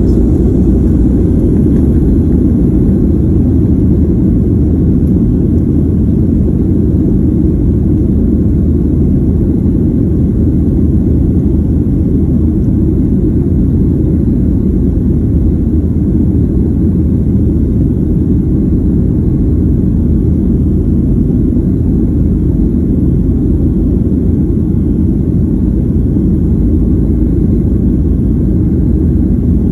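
Steady low rumble inside the cabin of a Boeing 737 jet airliner as it rolls on the ground, a mix of engine noise and the wheels on the pavement, holding even throughout.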